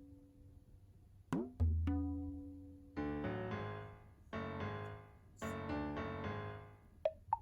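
Light background music: a few plucked low notes, then a run of struck chords from about three seconds in.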